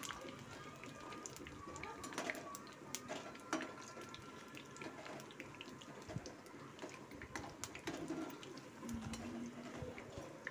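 Small balls of urad dal and rice batter deep-frying in hot oil, a steady sizzle and bubbling with frequent sharp crackling clicks, stirred now and then with a slotted spoon.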